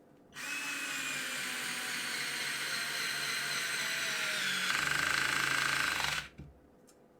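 Parkside PASS 4 A1 4-volt cordless electric screwdriver running for about six seconds on clutch setting 3. About four and a half seconds in, the steady whine turns into a fast, slightly louder rattle, typical of the adjustable clutch slipping once the screw is tight. Then the motor stops.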